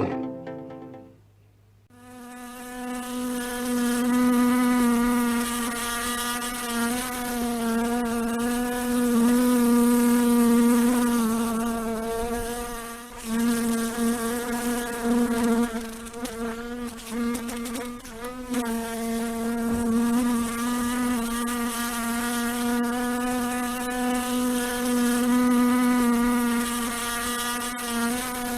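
Fly buzzing in flight: a steady drone with a slightly wavering pitch, starting about two seconds in and dipping briefly a couple of times.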